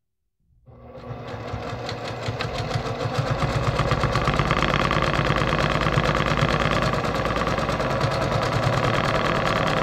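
Brother PQ1500SL straight-stitch sewing machine starting about half a second in and speeding up over a few seconds to a steady fast stitching rate, the needle clattering rapidly as it free-motion quilts through a quilt sandwich.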